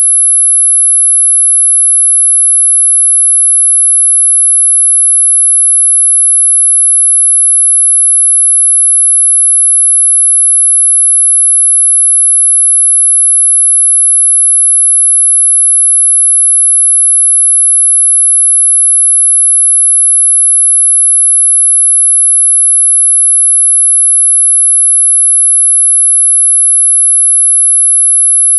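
Steady, very high-pitched electronic pure tone at about 11 kHz, unchanging throughout: a synthesized sine tone used to mask high-pitched tinnitus ringing.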